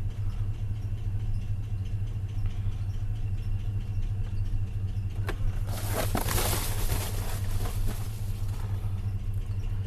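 A V8 engine idling steadily with a low, even rumble; the owner suspects a misfire on its passenger-side bank. A little after halfway, a click and then a rushing noise for about a second and a half.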